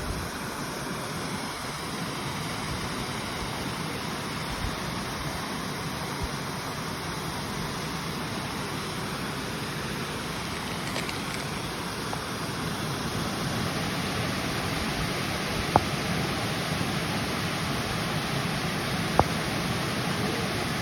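Steady rushing of flowing river water, with two sharp clicks about three and a half seconds apart in the last third.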